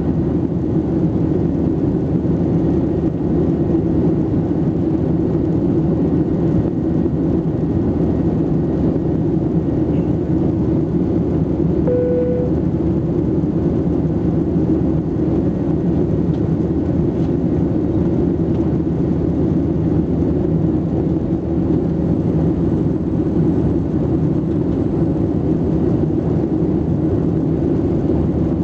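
Steady engine and airflow noise heard inside the cabin of a Boeing 737-700 with CFM56-7B engines, even in level throughout. A short single tone sounds once about twelve seconds in.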